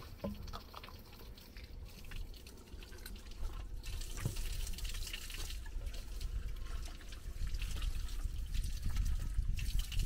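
Water trickling and dripping, with scattered small splashes over a steady low rumble.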